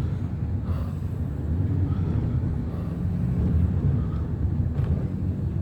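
Steady low rumble of a car heard from inside a taxi's cabin.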